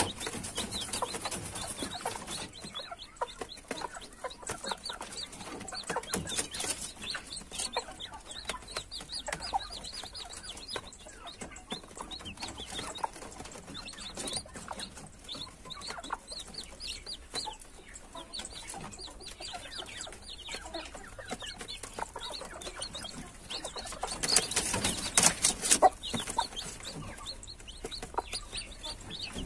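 A brood of young chicks peeping steadily in short high chirps, mixed with quick clicks of beaks pecking grain feed off a plastic tray. It gets louder for a couple of seconds near the end.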